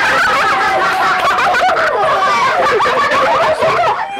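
A group of children laughing and shrieking loudly together, many high voices overlapping.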